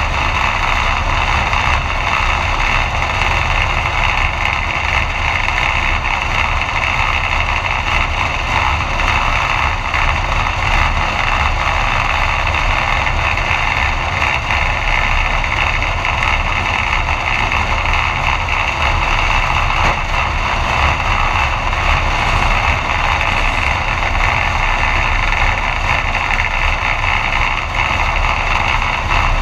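B-Mod dirt track race car's engine idling steadily with the car standing still, heard from inside the cockpit.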